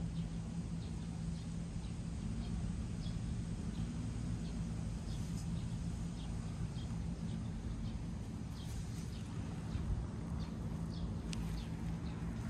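Outdoor ambience: a steady low hum with short faint bird chirps scattered through it.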